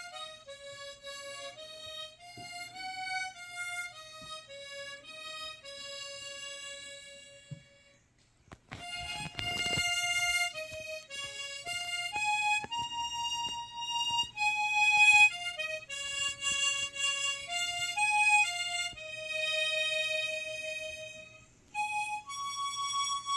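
Harmonica played by an amateur: a slow single-note melody of held notes. About eight seconds in, the playing stops briefly and a short noisy burst follows before the melody resumes.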